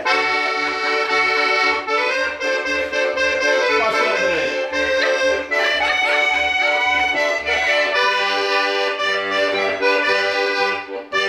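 Diatonic button accordion (organetto) playing a lively tarantella: a sustained reedy melody over a steady oom-pah bass of about two beats a second. It breaks off briefly near the end.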